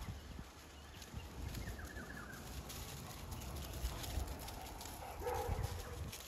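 Low rumble of wind and handling on the microphone in open bush. A short, high, chirping call comes about two seconds in, and a louder pitched animal call about five seconds in.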